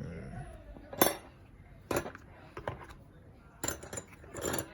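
Metal parts of a Nikonos close-up kit (the framers, rigging and mounts) clinking and knocking together as they are handled, several sharp clinks spaced roughly a second apart, the loudest about a second in.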